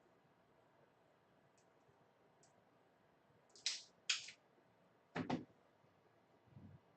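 Faint tool sounds at a microsoldering bench: two short hissy scrapes a little past halfway, then a sharp knock about a second later and a faint thud near the end.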